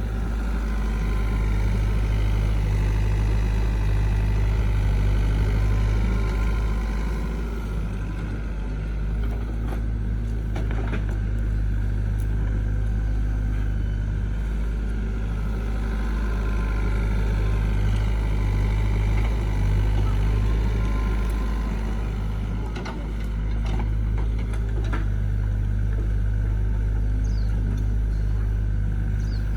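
A heavy machine's engine running steadily: a continuous low drone with slow rises and falls in pitch, and a few faint clicks.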